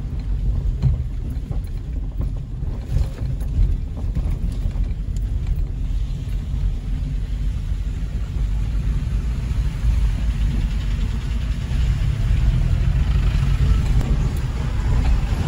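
Car driving slowly over a rough, broken road surface, heard as a steady low rumble of tyres and chassis with small scattered knocks.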